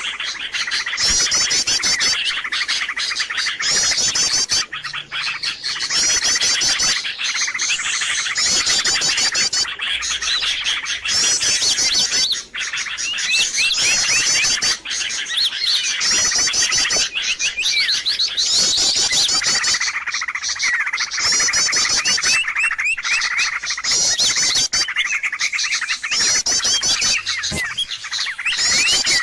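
Loud, dense chorus of many small birds chirping and trilling at once, with fast high trills repeating every second or two over continuous chatter: a noisy bird-lure (pikat) call track meant to draw wild birds in.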